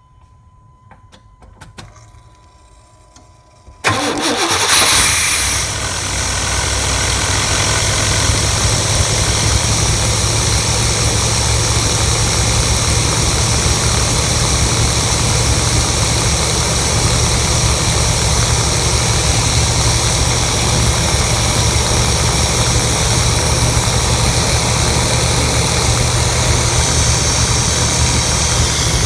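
1992 Chevrolet 454 SS pickup's 7.4-litre big-block V8 firing suddenly about four seconds in, flaring up briefly, then settling into a steady idle.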